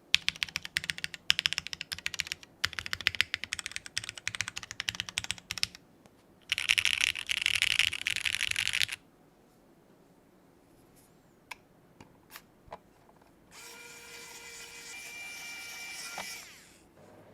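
Typing on a TGR Tomo SE mechanical keyboard with lubed Cherry MX Black linear switches, a polycarbonate plate and GMK keycaps: bursts of keystrokes for about six seconds, then a fast, dense run of about two and a half seconds. After a pause come a few single clicks, and near the end a steady whirring hum lasts about three seconds.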